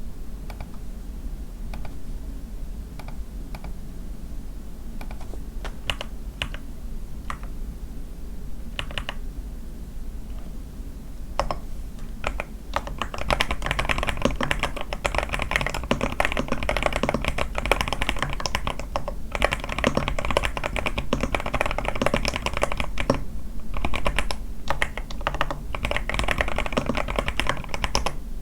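A81 mechanical keyboard with lubed Sky switches, a tape mod and lubed stabilisers being typed on. For the first ten seconds or so single keys are pressed one at a time, then it breaks into fast continuous typing with a couple of short pauses.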